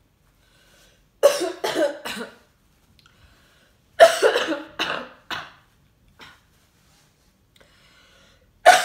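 A woman coughing in three fits of two or three hard coughs each: about a second in, at about four seconds, and again near the end. Typical of seasoning gone down the wrong pipe while eating.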